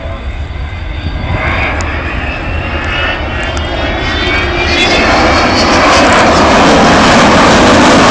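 Avro Vulcan bomber's four Rolls-Royce Olympus turbojets growing steadily louder as the aircraft approaches, a roar with a high whine that slides upward in pitch.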